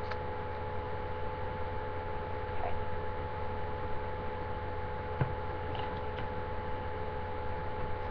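Steady electrical hum in the recording, with a few faint clicks and rustles from a small perfume bottle being handled.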